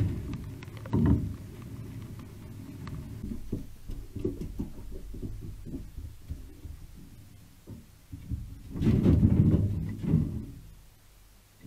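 Brushtail possums' feet thumping and scrabbling on a corrugated iron roof: a run of dull knocks, loudest for about a second and a half near the end as one passes close.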